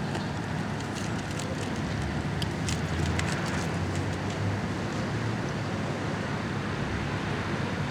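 Car engine idling with a steady low rumble, with scattered faint clicks over it.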